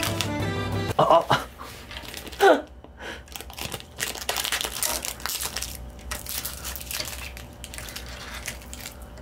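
Thin clear plastic protective film crinkling and crackling as it is peeled off an electric standing desk's control panel, with two louder sharp sounds near the start and faint irregular crackles after.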